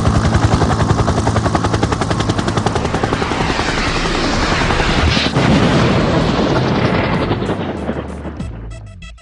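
Helicopter sound effect: rotor chop at about ten beats a second over engine noise, fading away over the last couple of seconds.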